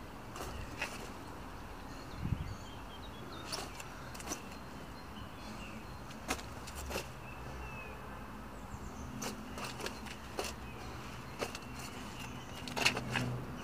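Outdoor ambience with a steady low background and scattered short sharp clicks and rustles at irregular intervals, a cluster of them near the end.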